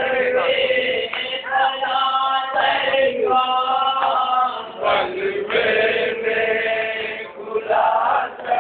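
A group of men chanting a nauha, a mourning lament, together in long held notes, as at a Shia matam gathering.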